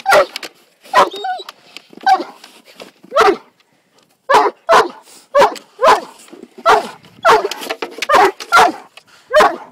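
A dog barking repeatedly: short barks about a second apart, a brief pause, then faster at about two barks a second.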